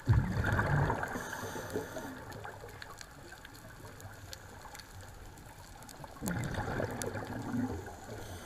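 Scuba diver's regulator exhaust bubbles heard underwater: two exhalations, one at the start and another about six seconds later, each a burst of bubbling that fades, with faint scattered clicks in between.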